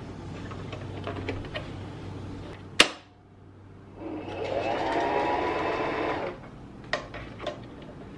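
Singer M1500 electric sewing machine running for about two seconds, starting about four seconds in, its motor whirring and rising in pitch as it speeds up. A sharp click comes just before, and a few lighter clicks after it stops.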